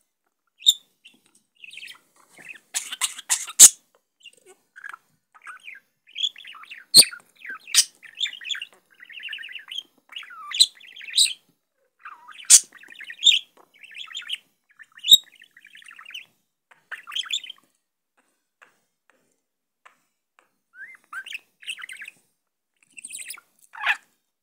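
Pet bird chirping and chattering in short warbling bursts, with a few sharp clicks between them. About three seconds in comes a short cluster of harsh, noisy bursts. It pauses for a few seconds before chirping again near the end.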